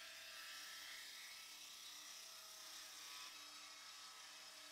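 Table saw blade ripping steadily through an oak board stood on edge, resawing it in a shallow pass; faint and even.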